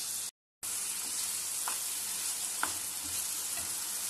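Chopped onion and capsicum with tomato and chilli sauce sizzling in hot oil in a pan, cutting out briefly just after the start. A steel slotted spoon stirring them gives a few light clicks against the pan.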